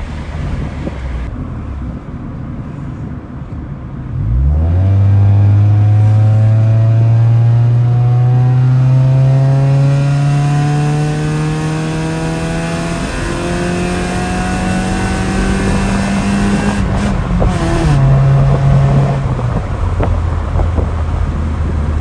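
Honda Civic 1.6's four-cylinder engine through a Varex valved aftermarket exhaust, heard from inside the cabin under hard acceleration. The exhaust note comes in loud about four seconds in and climbs steadily in pitch, then drops and fades near the end as she eases off.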